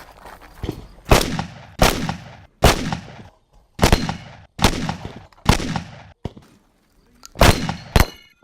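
Shotgun fired rapidly by a competitor running a stage: about eight loud shots, most roughly three-quarters of a second apart, with a longer pause before the last two fired close together.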